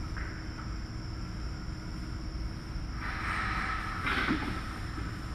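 Steady machinery hum in a pig farrowing barn, with a steady high whine above it, and a short burst of rustling noise about three seconds in.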